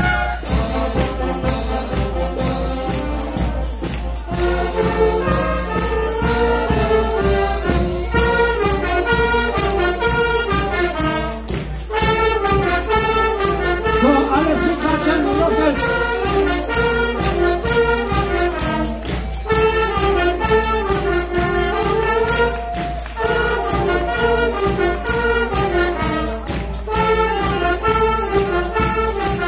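A youth band of trumpets and saxophones playing an up-tempo tune together over a steady beat.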